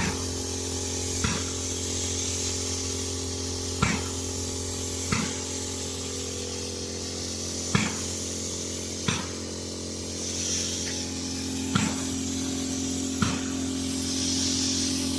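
Polyurea spray equipment running with a steady hum and a hiss of spraying, with a sharp click every one to two and a half seconds.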